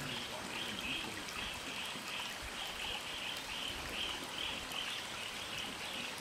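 Shallow stream water trickling and running over rocks, with a high call pulsing steadily about two to three times a second over it.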